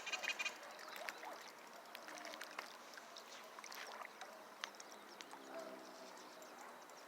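Faint outdoor background with a water-like wash and scattered light clicks and taps.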